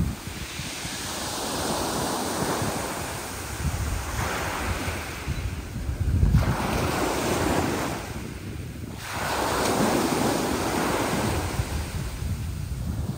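Sea waves surging and breaking one after another in rough weather, with wind buffeting the microphone.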